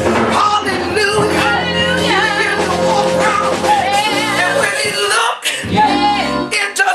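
Live gospel worship music: voices singing over a band with sustained low notes.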